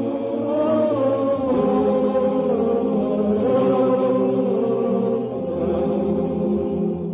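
Male voice choir singing a cappella in held close-harmony chords, the singers waggling their tongues out of their mouths as they sing ("tongue singing"). The chord shifts down about a second and a half in.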